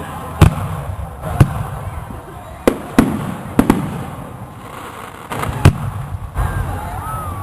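Fireworks bursting overhead: about seven sharp bangs, two of them close together near the middle, each trailing off in a low rumble.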